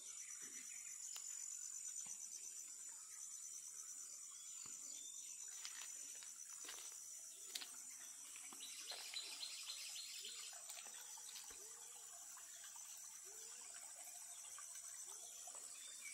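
Faint, steady high-pitched insect chorus, with a few faint clicks and rustles scattered through it.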